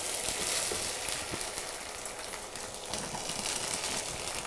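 Soaked, drained basmati rice pouring into hot ghee and cumin in a nonstick pan: a sizzling hiss with a patter of falling grains, strongest as the pour begins.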